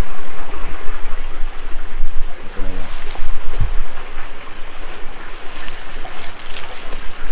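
Steady rushing of a small river, with leaves and fern fronds rustling and scattered footsteps as someone pushes through thick undergrowth toward the bank.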